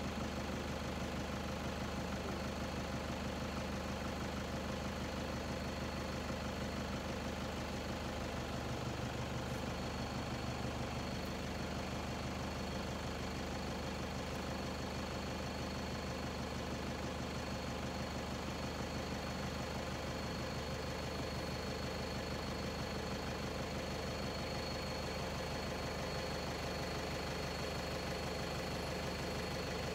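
Vehicle engine idling steadily, with a thin steady high tone above it.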